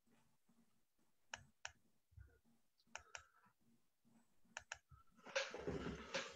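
Faint computer mouse clicks, three quick double-clicks about a second and a half apart, then a short, louder scuffing noise near the end.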